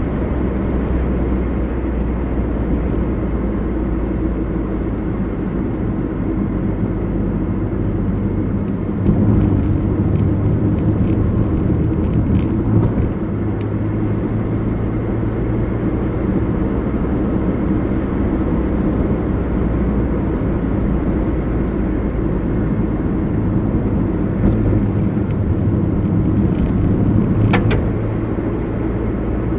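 Car driving along a road: steady engine and tyre noise, with the engine note rising and getting louder about nine seconds in and again for a few seconds near the end. A brief click sounds near the end.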